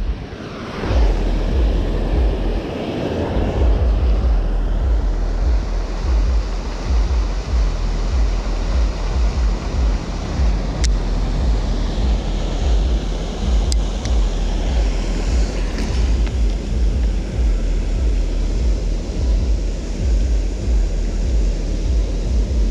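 Steady rush of whitewater gushing from a river outflow, with wind buffeting the microphone in a low rumble. Two brief sharp clicks about three seconds apart near the middle.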